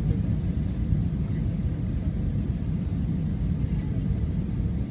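Steady low rumble of an airliner's engines and rushing air heard inside the passenger cabin on approach to landing.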